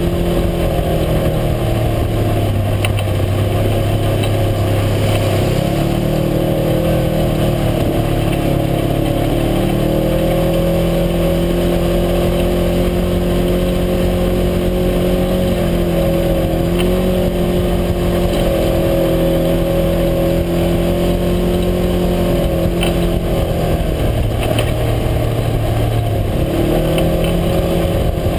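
A UTV's engine running steadily while driving, heard from on board. Its pitch steps up a couple of times as the revs rise, then drops briefly and comes back up near the end.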